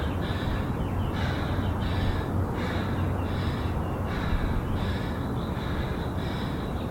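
A woman breathing hard in short, regular gasps, about one and a half breaths a second, winded in the middle of a high-intensity bodyweight workout, over a steady low hum.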